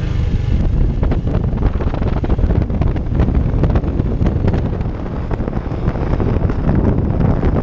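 Loud wind buffeting the microphone of a moving scooter: a rough, crackling rumble.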